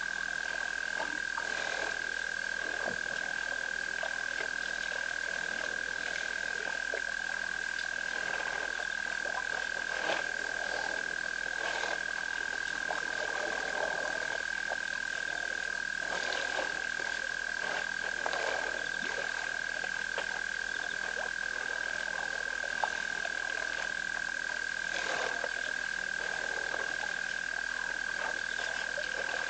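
Frog chorus: a steady, high-pitched trill held throughout, with irregular croaks scattered over it.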